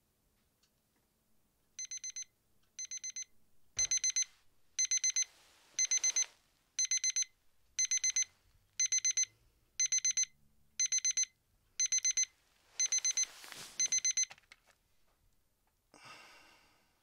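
Electronic alarm clock beeping in quick groups of four, about one group a second. The first two groups are softer, then it goes on louder until it stops at about fourteen and a half seconds. A rustling noise comes just before the beeping stops.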